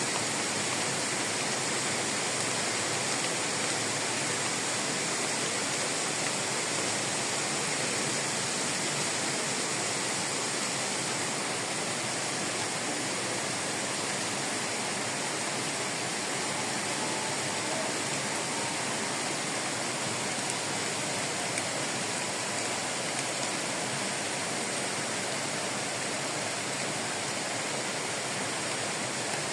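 Heavy rain falling steadily, an unbroken even hiss.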